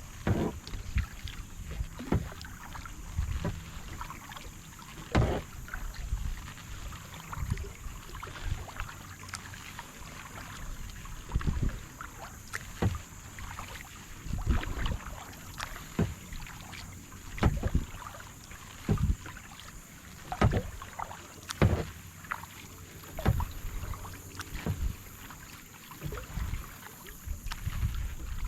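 Kayak paddle strokes dipping and pulling through lake water, a splash and swirl about every one and a half seconds in a steady paddling rhythm.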